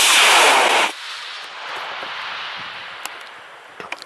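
Cesaroni I345 White Thunder solid rocket motor firing at liftoff: a loud rushing blast that cuts off suddenly about a second in as the motor burns out, followed by a softer rumbling hiss that slowly fades as the rocket coasts upward.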